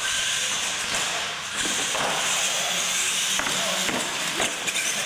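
Retro electric R/C monster trucks launching off the line and running flat out side by side. A loud, steady whine and hiss of their motors, gears and tyres starts abruptly.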